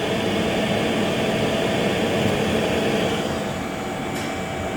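Espar D4L diesel air heater running, its blower pushing hot air out through the outlet duct with a steady rush and faint hum. The sound gets a little softer and duller about three seconds in.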